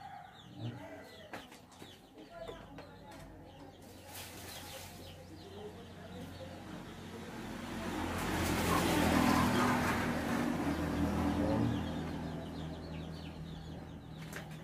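A passing motor vehicle: its engine hum and road noise swell up, are loudest about nine seconds in, then slowly fade. Birds and chickens call, with a few small metal clicks, in the first few seconds.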